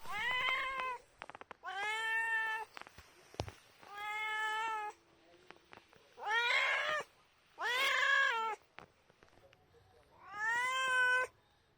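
A grey and white domestic cat meowing repeatedly: six drawn-out meows about a second each, spaced a second or so apart.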